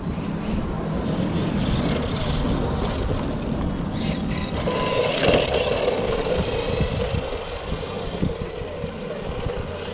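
Brushed electric motor and drivetrain of a 1/10-scale two-wheel-drive RC car running as it drives, getting a little louder about halfway through.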